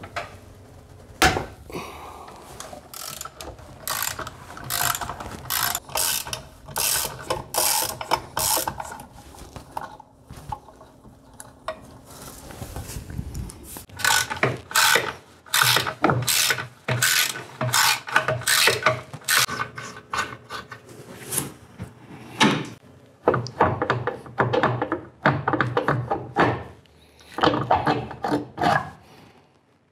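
Socket ratchet clicking in long runs of quick clicks as the nuts holding a master cylinder to the brake booster are loosened and spun off. The clicking pauses for a few seconds partway through.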